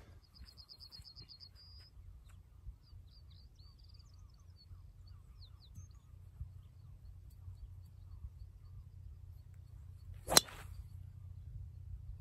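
A golf driver striking a teed ball: one sharp crack about ten seconds in. Before it, a small bird trills and chirps over a steady low rumble.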